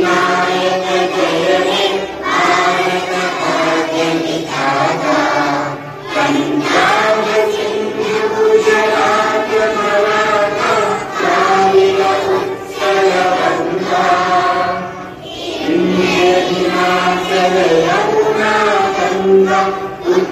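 A large group of schoolchildren singing a prayer together in unison, in long held phrases with short breaks between them.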